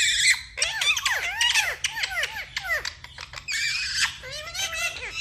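Pet parrots chattering and squawking: a rapid string of short rising-and-falling chirps and whistles, with loud harsh shrieks at the start and again about three and a half seconds in.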